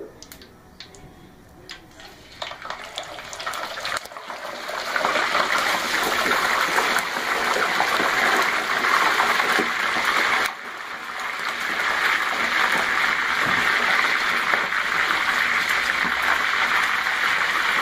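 Whole boiled chicken deep-frying in a wok of hot cooking oil: a few light clinks from the ladle and tongs at first, then a loud, steady sizzle that builds as the wet chicken goes into the oil. The sizzle drops off suddenly about halfway through, then builds back up.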